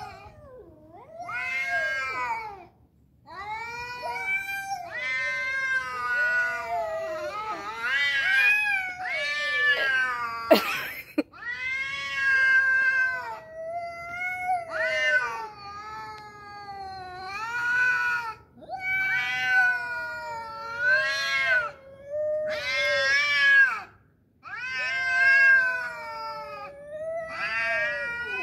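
Two domestic cats yowling at each other in an aggressive standoff: long, wavering caterwauls that rise and fall in pitch, one after another with short gaps. A single sharp knock comes about ten seconds in.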